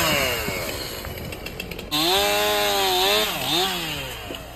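Gas chainsaw engine revving and coming off the throttle: its pitch falls away in the first second or so, then it is throttled up again about two seconds in, wavers and winds down near the end.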